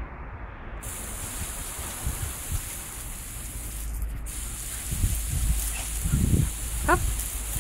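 Garden hose spraying water over wet tiles and a dog: a steady hiss that drops out briefly twice. A short rising pitched call comes near the end.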